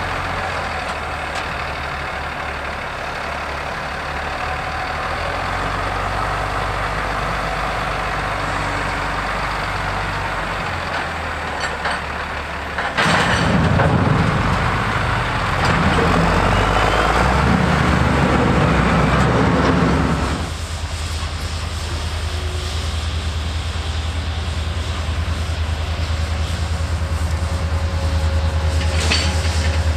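Large wheel loader's diesel engine running under load. About 13 seconds in, a loud grinding scrape lasts about seven seconds as the steel hopper car body is shoved and dragged over the ground. Near the end a freight train's diesel locomotive approaches and its low hum grows louder.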